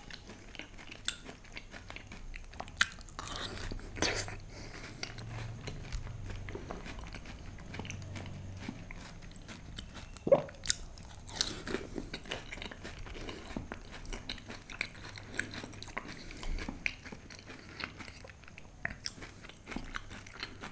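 Close-miked eating of dahi golgappe: crisp puri shells cracking between the teeth and being chewed, in scattered crunches with the sharpest about halfway through.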